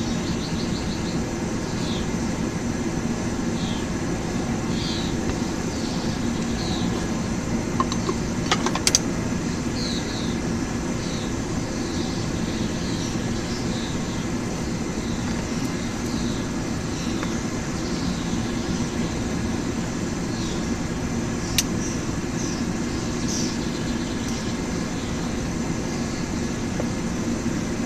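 Forge running steadily while steel bar stock heats in it, a constant rumbling rush. A few sharp clicks stand out, about eight seconds in and again past the twenty-second mark.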